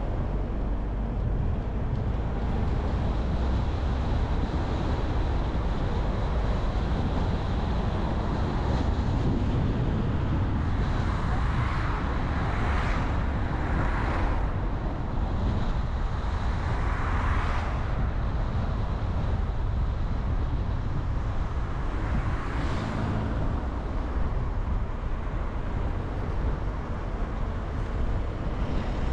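Car driving along a road: a steady low rumble of engine and tyres. Several brief rushes of passing traffic come near the middle.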